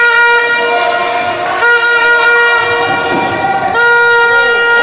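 A horn sounding three long, steady blasts of about two seconds each, one right after another.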